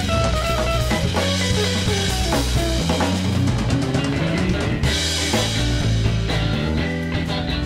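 A rock band jamming on electric guitar and drum kit, the guitar picking a melodic line over a steady beat with cymbals and a low bass line underneath.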